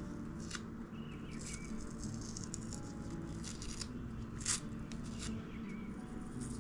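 Small scattered clicks and rustles from small thin wooden pieces being handled on a work surface, the sharpest one about four and a half seconds in, over a steady low hum.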